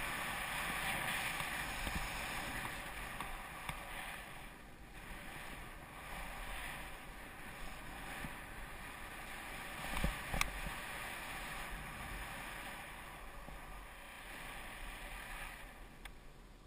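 Skis hissing through powder snow on a downhill run, with wind rushing over the camera microphone; the rushing swells and eases and fades near the end. A couple of sharp knocks sound about ten seconds in.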